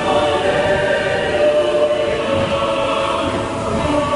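Choral music played through the Spaceship Earth ride's sound system: a choir holding long, sustained notes.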